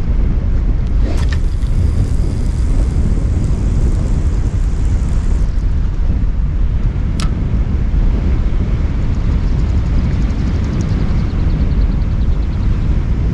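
Strong wind buffeting the microphone, a loud, steady low rumble. A single sharp click comes about seven seconds in.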